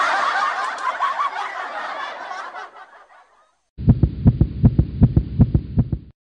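A loud rushing noise that fades away over about three seconds, then, after a brief gap, a rapid pounding heartbeat sound effect, about five beats a second, that cuts off suddenly.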